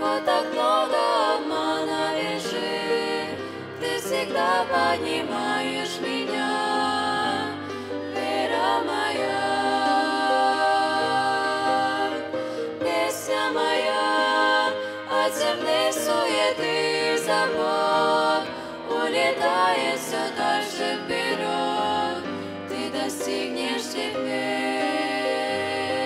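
Female vocal trio singing a Russian-language Christian song together into microphones, holding long notes that waver in pitch.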